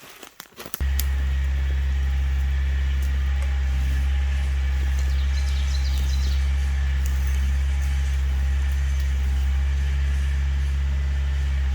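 Kioti tractor's diesel engine running at a steady pace, a low, even drone that starts abruptly about a second in.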